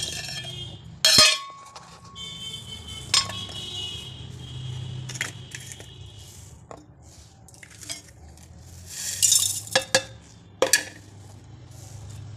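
Vegetables and whole spices dropped into a steel mixer-grinder jar: a string of clinks and knocks against the metal, the loudest about a second in, with a brief rattling patter around three quarters of the way through as seeds go in.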